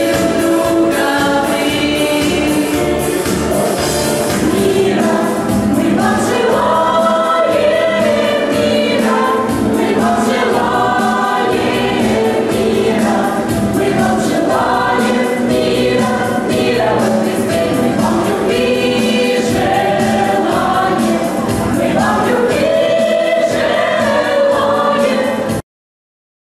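Mixed church vocal group of men and women singing a Christian song in parts into handheld microphones. The singing cuts off abruptly about a second before the end.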